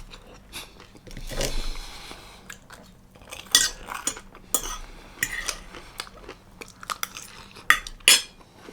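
Cutlery clinking and scraping on a plate, with chewing between mouthfuls. There are scattered sharp clinks, the loudest two close together near the end, and a short scrape about a second and a half in.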